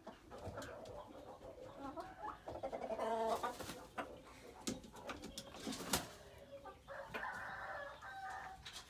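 Jungle fowl clucking and calling in short pitched phrases, one about three seconds in and another near the end, with scattered sharp knocks, the loudest about six seconds in.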